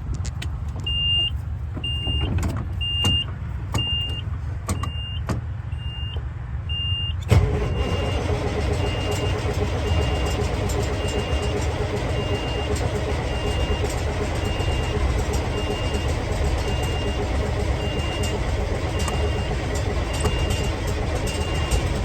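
Peterbilt 362 cabover's diesel cranking and then catching. About seven seconds in, the engine fires and settles into a steady run, starting cold after sitting for weeks. The cab's warning buzzer beeps steadily throughout, about one and a half times a second, and grows fainter once the engine is running.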